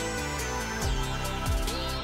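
Background music with a steady beat and sliding high notes.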